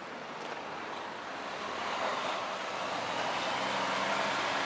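Road traffic passing close by, the noise of an approaching heavy truck swelling from about a second and a half in, with a low engine hum under the tyre noise near the end.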